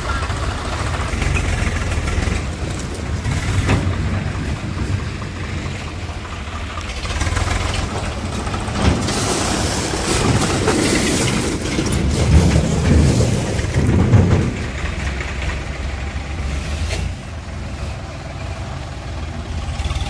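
Eicher 551 tractor's diesel engine running, working harder with a louder rumble between about ten and fourteen seconds in, with a hiss near the middle.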